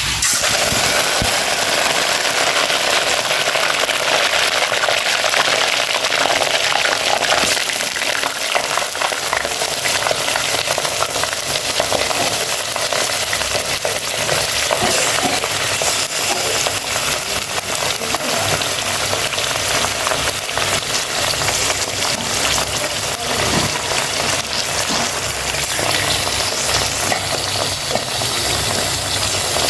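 Food frying: a steady, dense sizzle made of many fine crackles.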